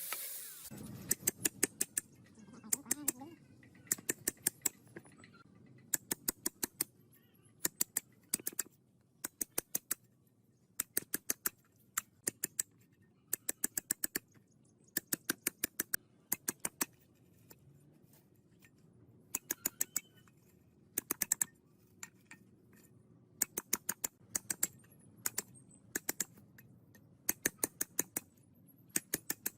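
Sharp taps or clicks in quick bursts of three to six, repeating every one to two seconds.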